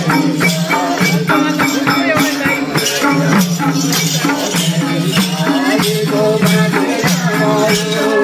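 Loud music with a steady beat of about two strokes a second over sustained low notes and a wavering melody.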